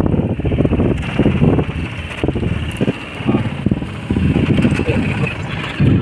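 Wind buffeting the phone's microphone: a loud, gusty rumble that swells and drops irregularly.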